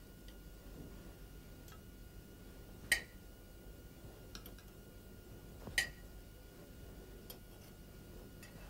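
Metal serving utensils clinking lightly against a china plate as medallions are set in place: two sharp clinks with a brief ring, about three seconds in and again near six seconds, with a few fainter ticks between, over quiet room tone.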